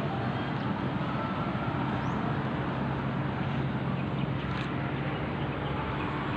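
Steady roadside traffic noise with the even drone of a vehicle engine running nearby.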